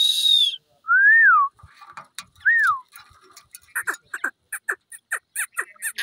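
Ringneck parakeets calling: a harsh high screech, then two clear whistles that rise and fall, then a fast run of short falling chirps, about four a second.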